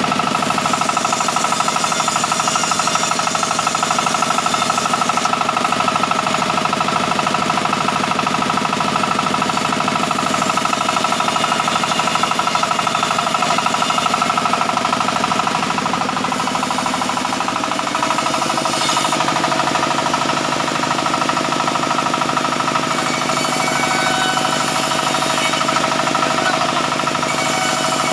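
Sawmill bandsaw machinery running steadily, with a fast, even mechanical pulsing and a steady ringing tone. The lower part of the sound shifts about two-thirds of the way through.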